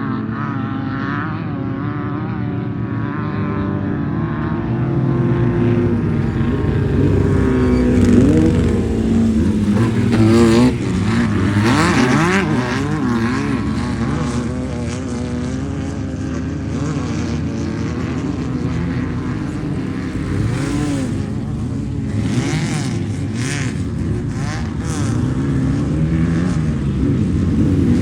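Off-road race vehicle engines revving, their pitch rising and falling again and again, with more than one engine heard at once in places and the loudest stretch about a third of the way in.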